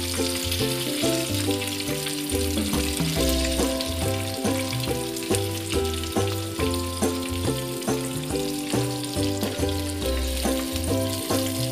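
Samosas deep-frying in a pan of hot oil with a steady sizzle. Background music with a bassline and a regular beat plays over it.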